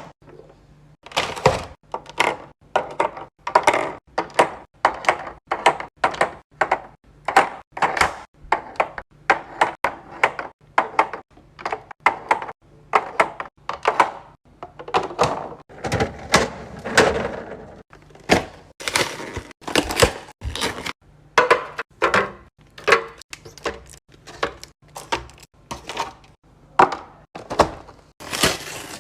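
Food containers and packages being set down and stacked in a refrigerator: a steady series of sharp knocks and clacks, about two a second.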